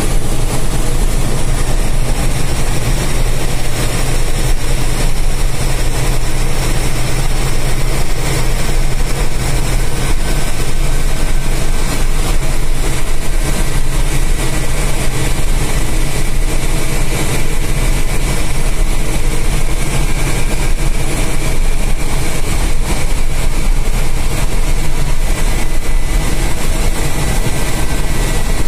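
BharatBenz 1623 bus's 230 hp diesel engine running steadily while cruising on the highway, heard from inside the driver's cab with a constant rush of road and wind noise.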